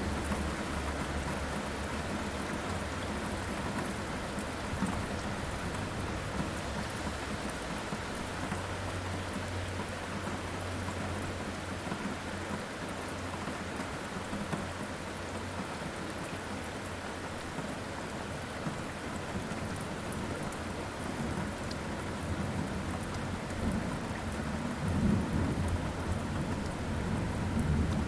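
Thunderstorm: steady heavy rain with low rolling thunder, the rumble swelling louder near the end.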